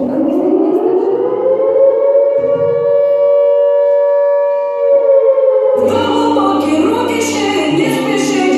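Warm-up music track starting: a siren-like tone glides upward and holds steady for about five seconds, then the full song with a beat comes in about six seconds in.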